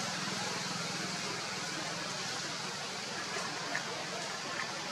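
Steady outdoor background hiss with a low hum that fades over the first second or two, and a few faint ticks in the second half.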